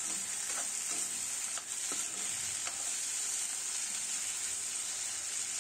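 Chopped vegetables sizzling in hot oil in a kadai while a metal spoon stirs them, with a few light scrapes and taps of the spoon against the pan.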